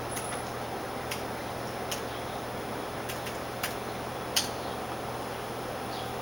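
Keys on a Logitech keyboard being typed slowly, one at a time, giving a handful of separate clicks at uneven spacing. Under them runs a steady low hum.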